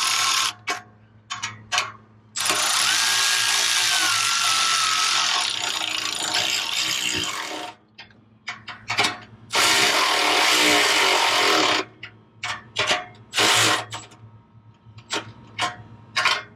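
Milwaukee battery-powered ratchet on a 15 mm deep-well socket, run in bursts to snug up the nuts of a muffler U-clamp and hanger bracket on the exhaust. It gives one long run of about five seconds with a wavering motor whine, a shorter run of about two seconds, then several quick blips as the nuts seat.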